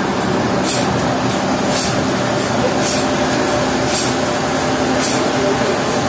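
Sawmill machinery running steadily with a constant hum, and a short hiss that repeats about once a second.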